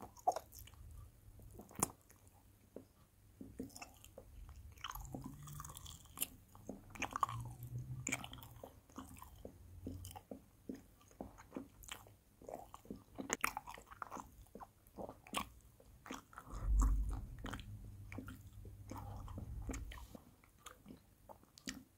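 Close-miked chewing of candy: a run of wet mouth clicks and smacks, with a few crunches. About three quarters of the way through comes a louder, muffled low rumble.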